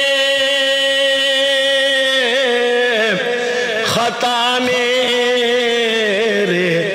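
Man's voice chanting a marsiya, unaccompanied: one long note held level for about two seconds, then melismatic turns that wander up and down in pitch.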